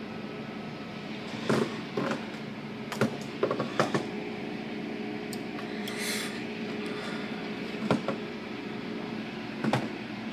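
Automatic car wash heard from inside the car: a steady machinery hum, with rotating wash brushes slapping against the car's glass in several sharp hits and a spray of water hissing over the car about six seconds in.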